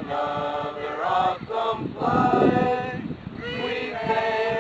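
A group of men and women singing together in unison, on held notes that change every half second or so.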